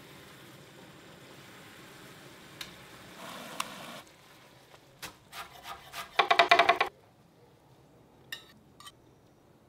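Sauce simmering in a pan while a wooden spoon stirs and scrapes through it, with a loud rapid rattling scrape a little past six seconds. Near the end, a few light clicks of tongs on a plate as the chicken is served.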